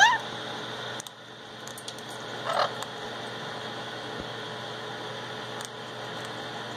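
Hawk-headed parrot giving a short, loud rising call right at the start, then a shorter, fainter call about two and a half seconds in, with a few faint clicks in between.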